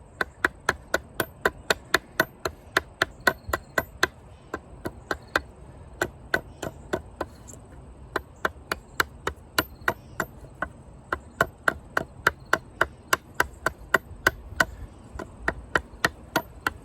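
Condor Heavy Duty Kukri's thick carbon-steel blade chopping into a wooden branch in quick, light strokes, about three to four a second, in runs with a few short pauses. This is a spear point being carved on the branch's end.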